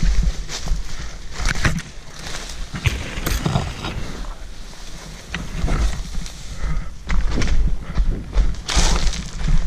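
Someone running through ferns and undergrowth with the camera: irregular rustling and brushing of vegetation and footfalls, over a heavy low rumble of wind and handling noise on the microphone.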